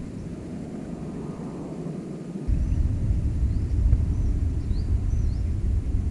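Wind rumbling on the microphone, jumping suddenly louder about two and a half seconds in as a stronger gust hits. A few short high bird chirps come through over it in the second half.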